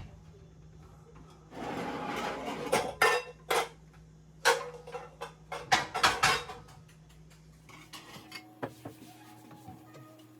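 Dishes and cutlery clinking and clattering as they are handled and set down, with a run of sharp knocks between about three and seven seconds in, then a few lighter taps.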